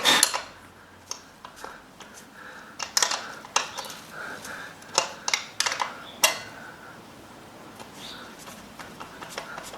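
Metal tools clinking and knocking irregularly against each other and the wheel while a motorcycle tyre is worked on, with a cluster of sharper clanks in the middle.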